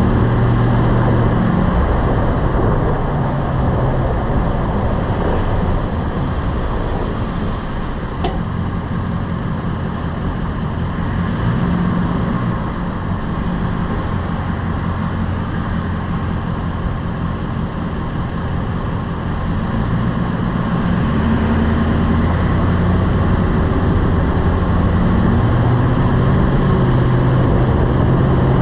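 Lifted pickup truck driving, with engine and road noise from the moving truck. The engine note dips about a second in and again past the middle, then climbs near the end as it speeds up.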